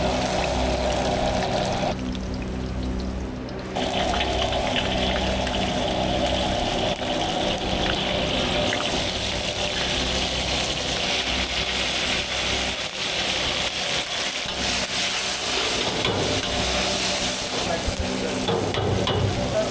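Chicken karahi sizzling as it fries in the karahi pan, with background music.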